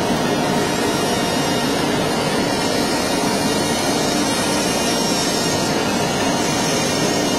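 AOKE flatbed digital CNC cutter running as its cutting head moves over fiberglass fabric: a loud, steady, unbroken machine noise.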